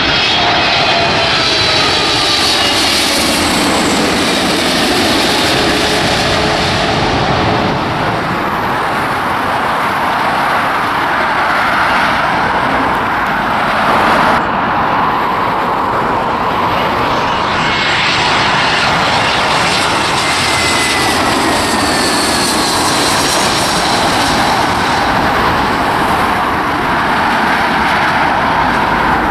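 Jet engines of a landing twin-engine airliner, a Boeing 777, passing low overhead. A loud, steady rushing roar carries an engine whine that falls in pitch over the first few seconds as the aircraft goes by. About halfway through the sound changes abruptly, and the jet roar continues with another falling whine a few seconds later.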